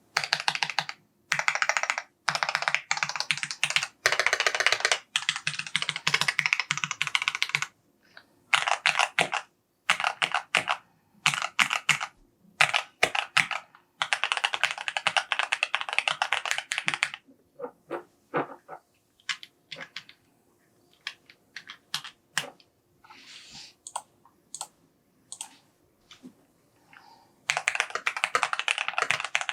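Typing on a mechanical keyboard: fast runs of keystrokes in bursts with short pauses, thinning to scattered single key presses for about ten seconds, then fast typing again near the end.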